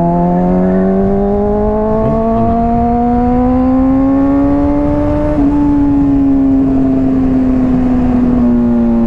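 Honda CBR600RR's inline-four engine through a Hotbodies Stinger slip-on exhaust, its revs climbing steadily under gradual acceleration for about five seconds, then easing off and slowly falling, with low wind rumble underneath.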